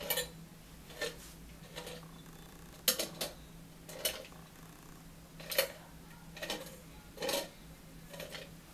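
Handheld manual can opener cutting around the end of an aluminium soda can. It makes short metallic clicks and crunches about once a second, some of them irregular, as the key is turned.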